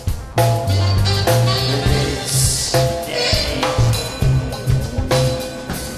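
Rock song in an instrumental stretch: a bass line and drums, with sustained guitar or keyboard tones and no singing.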